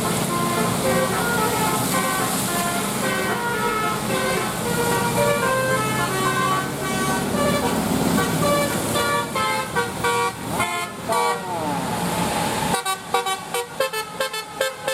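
Bus 'telolet' multi-tone air horns playing a fast melody of short notes jumping between pitches, with a few notes sliding in pitch about ten seconds in. Near the end an abrupt change brings a choppier, staccato horn tune.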